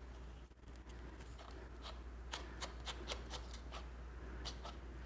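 Faint, irregular small clicks and light taps of hands handling a padlock and drill, over a low steady hum.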